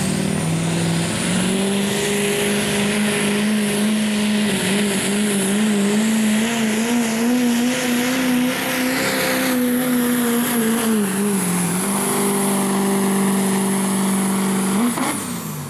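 Diesel pickup truck engine held at full throttle while pulling a weight-transfer sled, with a thin high whine over the engine note. The engine pitch wavers in the middle of the pull, dips briefly, steadies again, then drops as the throttle is let off near the end, and the whine falls away with it.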